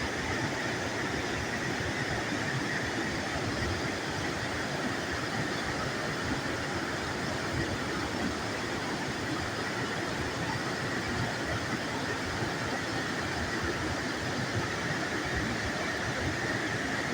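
Probiy waterfall on the Prut River: a steady rush of falling water, loud and unbroken.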